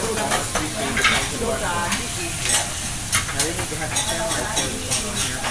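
Steak pieces sizzling on a hot flat-top teppanyaki griddle: a steady frying hiss broken by sharp clicks and taps a few times a second.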